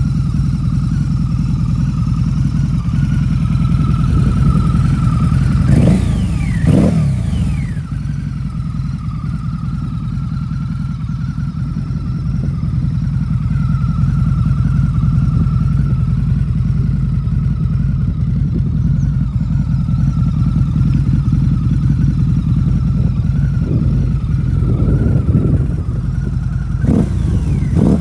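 Harley-Davidson VRSCDX Night Rod Special's V-twin engine idling steadily, revved briefly twice about six seconds in and again a few times near the end, each rev rising and falling quickly in pitch.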